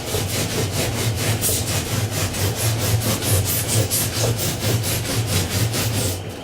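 Hand saw cutting through a foam insulation board in quick back-and-forth strokes, stopping about six seconds in.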